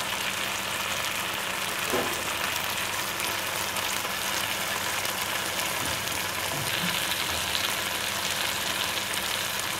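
Marinated chicken drumsticks sizzling steadily in a pot with onions and spice sauce, with one light knock about two seconds in.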